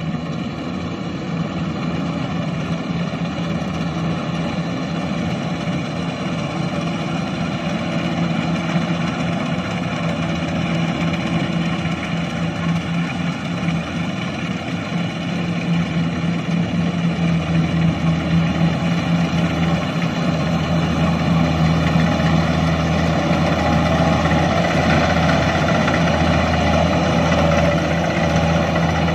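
Kubota combine harvester's diesel engine running steadily under load as it cuts rice in soft, sinking mud, growing gradually louder and deeper about two-thirds of the way through.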